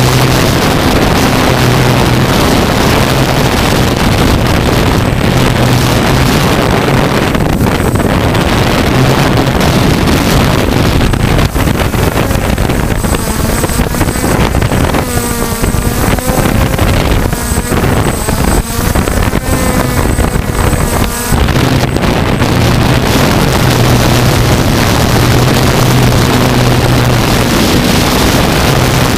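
Six electric motors and propellers of a DJI Flamewheel F550 hexacopter droning steadily in a hover, heard from the GoPro mounted on the craft, with wind buffeting the microphone. Midway through, the motor pitch wavers up and down for several seconds, then settles back to the steady hum.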